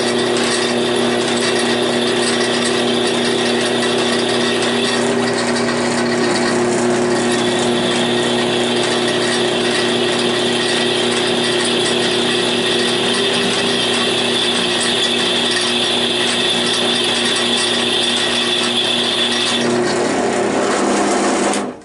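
Central Machinery 10-inch benchtop drill press running at 300 RPM, its twist bit cutting into mild-steel square tubing, a steady mechanical hum with a high whine. It stops suddenly at the very end.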